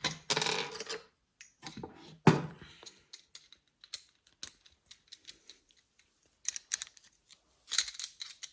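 Small metal clicks, taps and clinks from a balisong trainer being handled as a weight is taken out of it. There is a louder clatter with a brief ring at the start and a sharp clink about two seconds in, then scattered light clicks.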